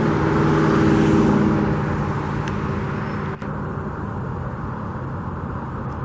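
A road vehicle passing by: engine hum and tyre noise that swell to their loudest about a second in, then slowly fade away.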